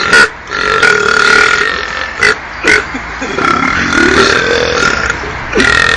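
A man belching in a rapid string: a short burp, a long drawn-out belch of about a second, two quick short burps, then another long belch of about two seconds, with a fresh one starting right at the end.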